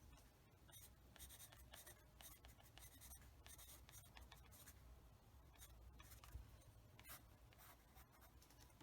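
Faint scratchy strokes of a paintbrush laying oil paint on paper, many short strokes in quick succession over a low steady hum.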